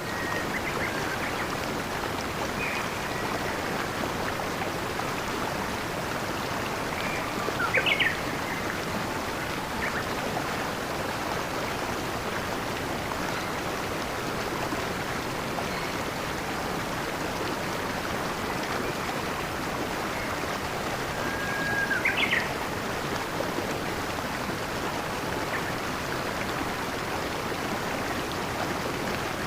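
Steady rush of flowing water, with scattered short bird chirps over it. The two loudest chirps come about eight seconds in and again a little past twenty seconds.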